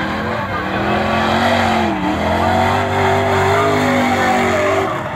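Drift cars sliding in tandem, engines held at high revs with tyres squealing. The engine pitch dips about two seconds in, then climbs again as the throttle comes back on.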